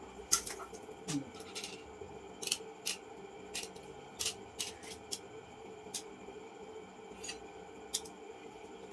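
Irregular sharp clicks, a dozen or so, over a faint steady hum: small hand-work sounds during the key repair.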